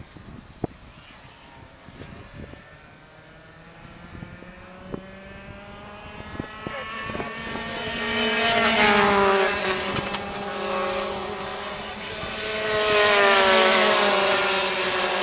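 Racing go-kart engines running at high revs. They are faint at first and grow as a pack of karts approaches and passes, loudest about nine seconds in and again near the end.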